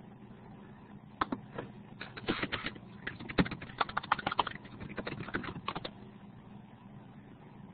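Computer keyboard typing: a run of quick, irregular keystrokes starting about a second in and stopping about six seconds in, over a faint steady hum.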